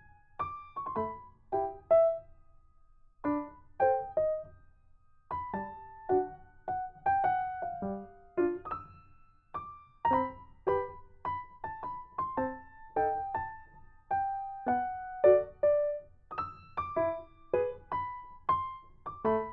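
Background music: a piano melody of short struck notes that each fade quickly, with two brief pauses in the first few seconds.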